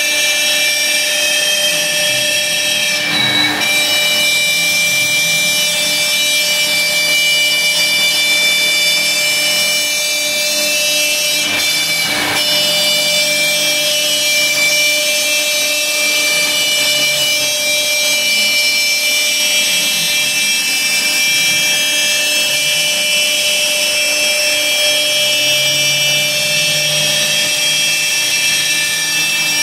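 Laguna Swift CNC router's spindle whining steadily as its bit cuts a logo into 1/2-inch plywood. Lower tones shift in pitch as the gantry moves along the cut, and there are two brief louder rasps, about three and twelve seconds in.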